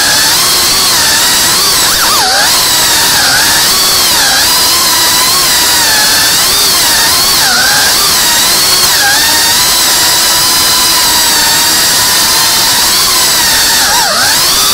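Whoop-class FPV drone's small electric motors and propellers whining loudly and without a break. The pitch wavers up and down constantly with the throttle, with quick dips about two seconds in and near the end.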